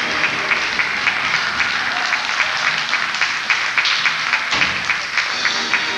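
Theatre audience applauding, a dense run of hand claps, with music playing underneath.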